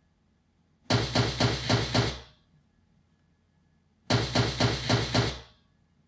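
Rapid string of about six Glock 19 pistol shots from a sound-effect track, the same volley heard twice about three seconds apart.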